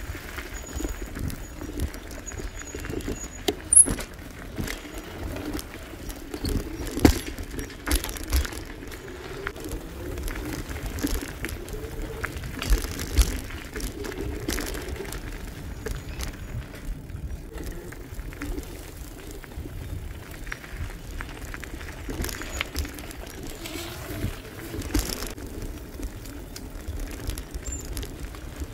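E-bike riding along a campground road: tyres rolling, with irregular clicks and rattles from the bike and an uneven low rumble.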